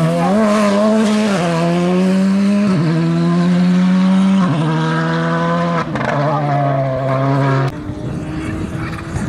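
Rally car engine running hard. Its pitch shifts in sudden steps several times, then it falls away sharply near the end.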